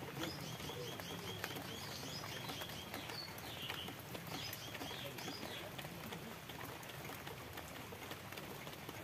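A bird chirping a run of quick, repeated high notes, about three a second, then a few more short phrases, over a steady light patter of rain falling on the pond.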